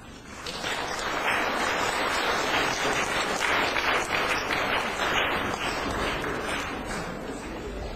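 Audience applauding, the clapping building up about half a second in and then going on steadily.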